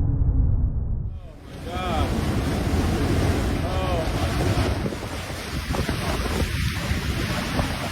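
Strong storm wind blasting across the microphone, a steady loud rushing noise, with a brief low rumble in the first second before it.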